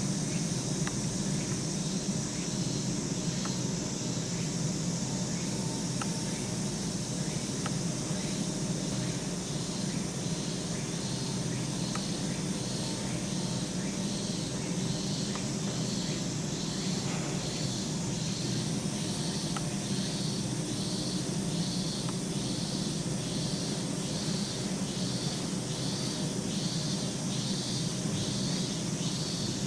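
Insects calling in a regular pulsing rhythm, about one and a half pulses a second, over a steady low hum.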